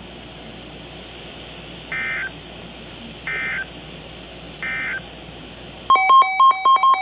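Emergency Alert System end-of-message data bursts: three short, identical screeching digital tone bursts about 1.3 seconds apart over steady radio hiss, marking the end of the weather warning broadcast. Near the end, a rapid run of loud electronic beeps begins.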